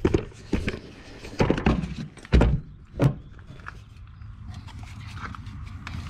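Handling noise: several irregular knocks and clunks from tools and a multimeter being handled, the loudest a little over two seconds in, then a faint low rumble.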